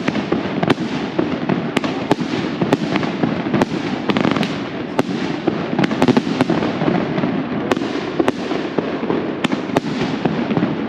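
Firecrackers going off one after another: many sharp, irregular bangs, several a second, over a constant din.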